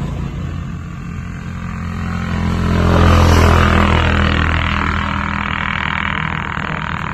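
A motor vehicle's engine passing by: a steady low hum that grows louder to a peak about three seconds in, then fades slowly.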